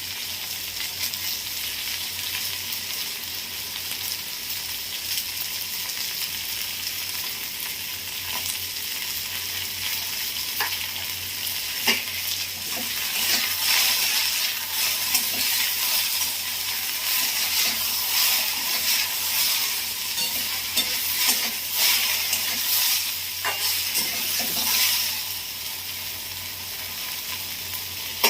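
Sliced okra frying in hot oil in a kadai, sizzling steadily. A spatula scrapes and knocks against the pan as the okra is stirred, most often through the middle of the stretch.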